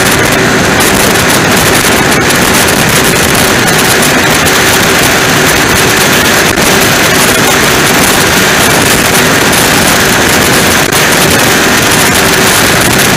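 Offshore powerboat's engines running, a loud, steady, crackling rumble that overloads the camera's microphone.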